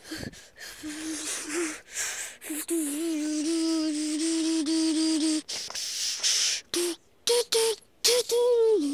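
A person making wordless mouth noises: breathy hissing bursts and short hummed notes, a wavering hummed note held for about three seconds in the middle, then shorter, higher notes near the end.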